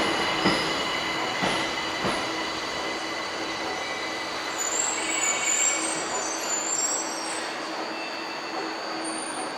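Tokyo Metro 1000 series subway train moving slowly through the station. Its wheels click over rail joints a few times early on, with a steady hum underneath and brief high wheel squeal around the middle.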